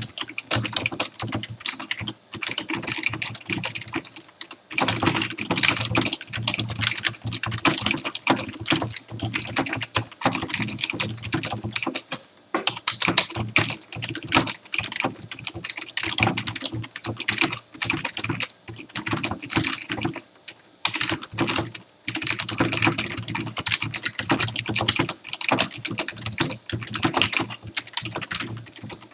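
Computer keyboard being typed on steadily in fast runs of key clicks, with brief pauses between bursts of words.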